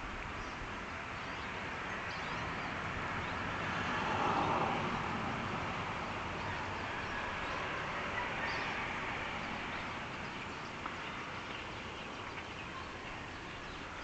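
Steady background hiss that swells and fades about four to five seconds in, with a few faint, short high chirps.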